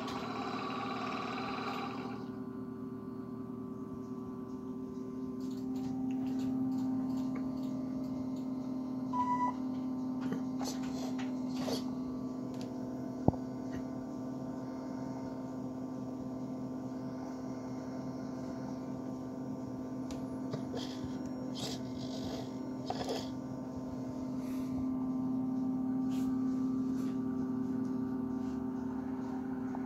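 Steady hum made of several even tones that swells twice. A short beep comes about nine seconds in and a single sharp click about four seconds later.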